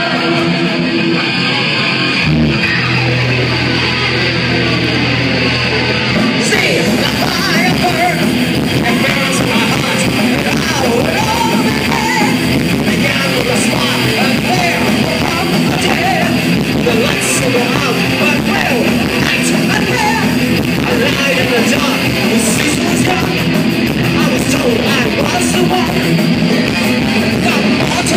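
Heavy metal band playing live: distorted guitars and bass, with drums and cymbals filling in about six seconds in, and a vocalist singing over the band.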